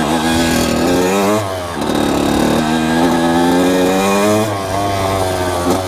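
1998 Kawasaki KX80's 80cc two-stroke single-cylinder engine revving hard under acceleration, its pitch climbing and dropping back about twice.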